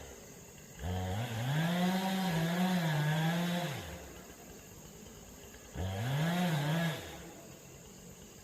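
Chainsaw revved up twice: a long burst of about three seconds, then a short one of about a second. Each time the pitch climbs quickly, wavers while held, then drops back.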